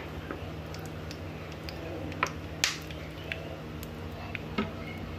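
Oil heating in a clay pot, giving off occasional sharp ticks and crackles over a steady low hum, with the loudest ticks a little past the two-second mark.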